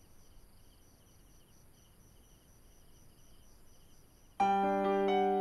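Faint insects chirping in short, evenly repeated high trills. About four seconds in, a piano comes in loudly with slow sustained chords.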